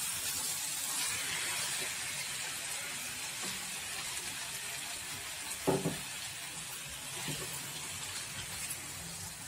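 Marinated chicken pieces sizzling in a hot nonstick kadai with onion and tomato as they are stirred with a spatula, a steady frying hiss. A single short knock, likely the spatula against the pan, comes a little past the middle.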